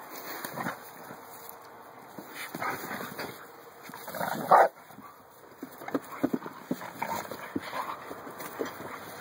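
Pit bull and a small spotted pig play-fighting, the dog vocalizing, with one loud cry about four and a half seconds in and a quick run of short sounds after it.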